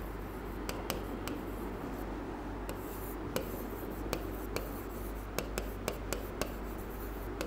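A stylus writing on an interactive touchscreen whiteboard: the pen tip taps and scratches across the glass, giving sharp clicks at irregular intervals as the letters are formed.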